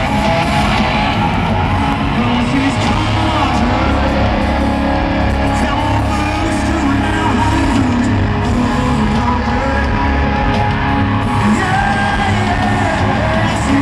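Live country-rock concert music played loud through the arena's sound system: band with guitars and a steady beat, a singer's voice over it, and crowd voices mixed in.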